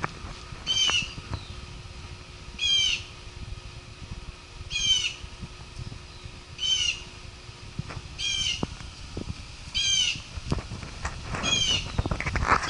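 A bird calling seven times, about every two seconds, each call a short, high, falling note.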